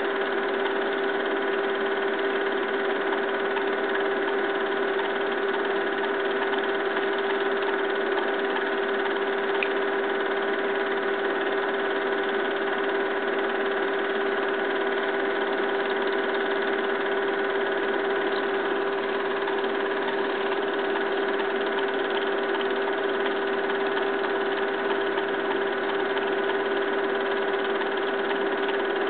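Film projector running with a steady mechanical whir and a constant hum.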